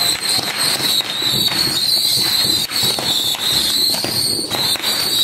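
A firework box of more than 5000 baby whistle rockets (babypijltjes met fluit) firing nonstop: a steady, shrill whistling with dense crackling from the swarm of little rockets.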